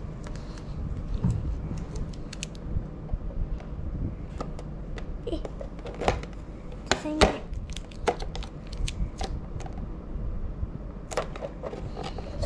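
A vinyl decal being peeled from its backing and pressed onto an RC truck's plastic body shell by hand: scattered small clicks, crinkles and taps, the loudest about seven seconds in, over a steady low hum.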